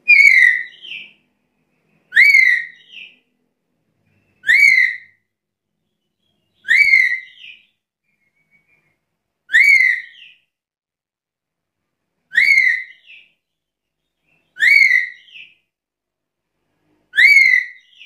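Black-capped lory (Lorius lory) giving a loud whistled call eight times, about every two to three seconds; each call is a note that rises and falls, followed by a shorter second note.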